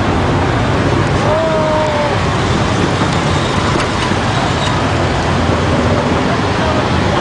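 Steady, loud vehicle and road noise, heaviest in the low end, heard from inside a moving vehicle as it drives past a column of tracked armoured vehicles and army trucks.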